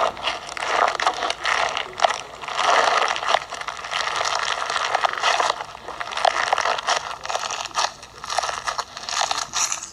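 Fishbowl slime, clear slime packed with small plastic beads, being squeezed and kneaded, giving a dense, continuous crackling and crunching of many little clicks and pops.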